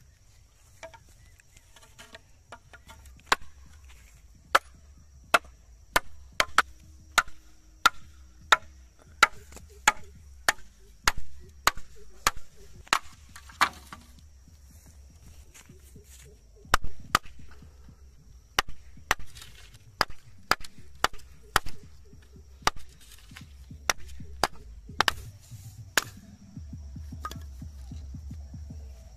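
A machete-type knife chopping bamboo: a run of sharp, hard strikes, about one or two a second, that stops for a couple of seconds around the middle and then resumes. The bamboo is being split into flat slats.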